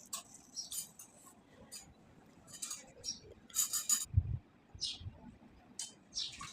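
Kitchen utensils clinking lightly against a dish or pan in a string of short, scattered clinks, with a dull thump about four seconds in.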